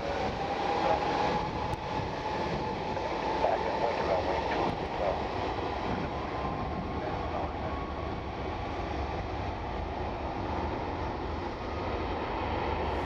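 Airbus A330-300's Rolls-Royce Trent 700 turbofans running as the airliner rolls along the runway: a steady rumble with a thin whine that rises slowly in pitch as the engines spool up.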